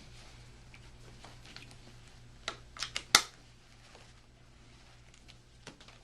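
Harness straps and hardware being handled on a child's seat: a quick run of four sharp clicks about halfway through, the last the loudest, then a few faint ticks, over a low steady hum.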